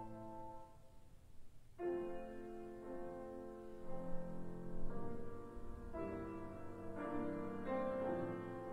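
Piano playing slow, sustained chords, a new chord struck every one to two seconds, as the accompaniment to an operatic aria while the voice rests.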